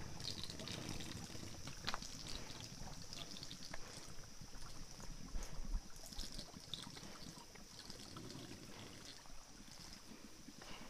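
A shallow rocky stream trickling faintly over stones, under a steady high-pitched drone, with a few scattered footsteps on loose stones.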